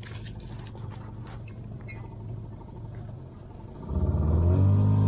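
Small outboard motor on an inflatable boat running at low speed. About four seconds in the throttle is opened and the motor rises in pitch and gets much louder, driving the boat up onto the plane.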